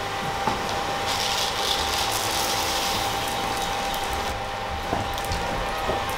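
Dry risotto rice poured from a plastic bowl into a hot frying pan of butter and onion. The grains rattle into the pan for about two seconds, starting about a second in, over the pan's sizzle and a steady high whine from the induction hob.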